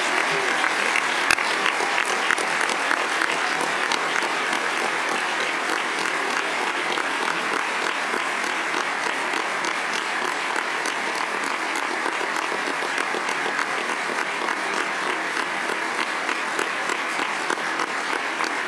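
Sustained applause from a large crowd of legislators giving a standing ovation, dense and steady.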